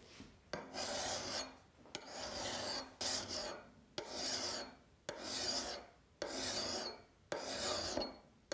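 A hand file scraping across the steel edge of an axe head in slow, even strokes, about one a second with short pauses between, as the bevel is ground down by hand.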